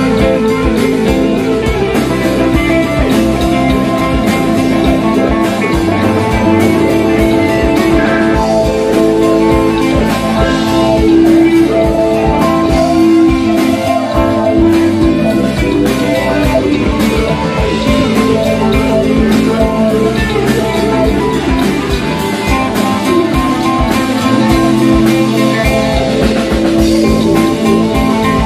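Live jam band playing an instrumental funk-rock jam: electric guitar over a drum kit with a steady beat, with bass and keyboards.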